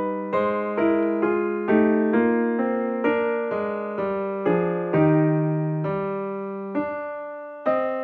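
Background piano music: a slow run of single struck notes, about two a second, each fading away, with a few notes held longer in the second half.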